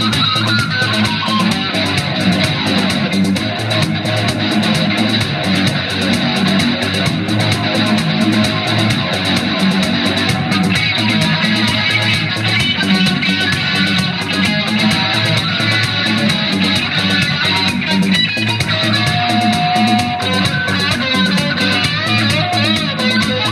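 Electric guitar playing improvised lead lines over a steady beat.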